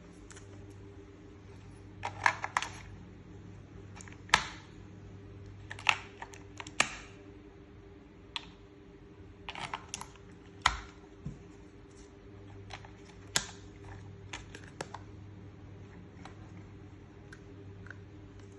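Irregular sharp clicks and taps, some in quick clusters, from a plastic toy and its packaging being handled, over a low steady hum.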